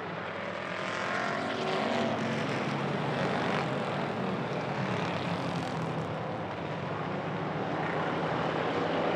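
A field of hobby stock race cars accelerating hard on a green-flag restart, many engines running together at full throttle, their pitch climbing in the first couple of seconds.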